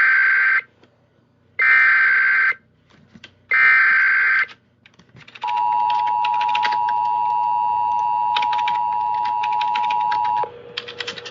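Emergency Alert System SAME header: three one-second bursts of screeching digital data, then the EAS two-tone attention signal (853 and 960 Hz) held steady for about five seconds. Short clicks run through the tone, which cuts off about ten seconds in, leaving a faint low tone.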